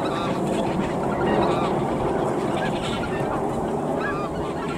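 Flock of snow geese calling: many short, high honks overlapping throughout, over a steady din of more distant calls from the flock.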